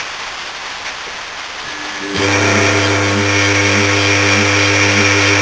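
The bare stator and rotor of a Danfoss Maneurop MTZ100 compressor motor, fed on capacitors, switched onto mains after a sharp click: about two seconds in a loud electrical hum starts, with a slow pulsing about twice a second as the rotor only just begins to turn. The motor is too short of capacitor kick to start properly and needs more capacitance.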